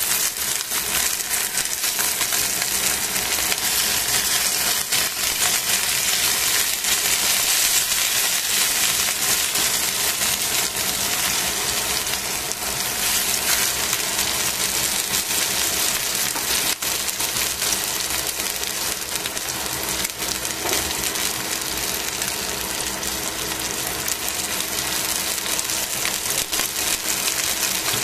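Chicken wing drumettes sizzling in oil in a stainless steel frying pan: a steady dense crackle with many small pops, and now and then the click of tongs against the pan as the pieces are turned.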